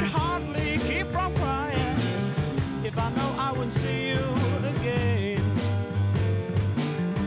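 1970s rock band recording: steady bass and drum beat with a lead melody line on top that bends and wavers in pitch.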